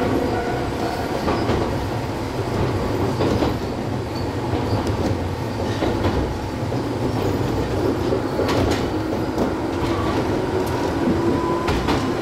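Small electric commuter train of the Gakunan Line running between stations, heard from inside the cab: a steady running rumble with faint whining tones, and wheels clicking irregularly over rail joints.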